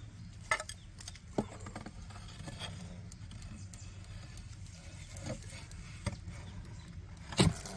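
A wooden stick knocking and scraping inside a hollow-log bee hive: scattered light knocks, with a cluster of louder ones near the end.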